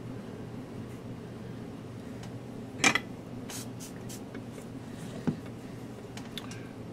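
Handling noises at a workbench as a solder spool and soldering iron are picked up and moved: one sharp clack about three seconds in and a lighter knock a little after five seconds, over a steady low hum.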